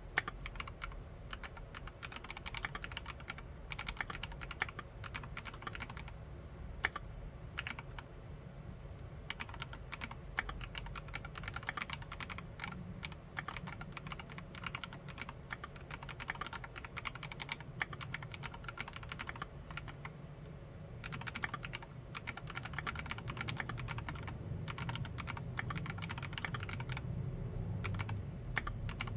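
Steady typing on a Monstargear Alu XO v3 mechanical keyboard fitted with Keychron K Pro Mint switches, a continuous patter of keystrokes with two brief pauses. The typing is a little louder and fuller after the second pause.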